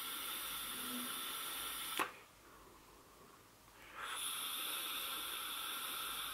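Air hissing steadily through a vape atomizer during two long draws. The first draw stops sharply about two seconds in, and the second starts about four seconds in.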